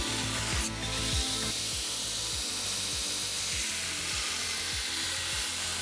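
Belt grinder grinding a Damascus steel katana blade: a steady hiss of abrasive belt on steel. Background music with a steady beat, about one beat every 0.6 seconds, plays throughout.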